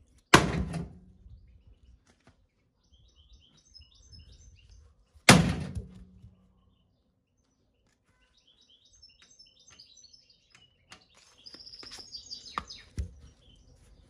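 Two loud thuds about five seconds apart, each leaving a brief low hum, with birds chirping between them and a lighter knock near the end.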